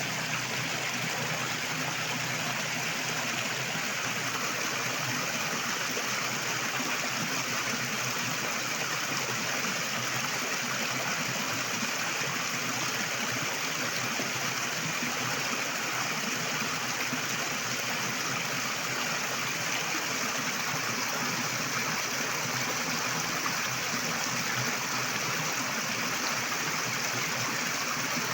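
River water flowing steadily over rocks: a continuous, even rush with no breaks.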